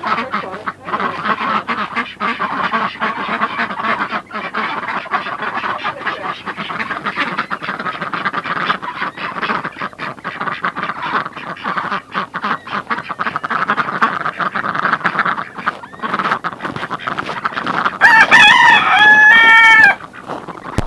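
A flock of ducks quacking continuously in a busy chorus as they walk out of the coop. Near the end a rooster crows loudly, one long stepped crow of about two seconds over the quacking.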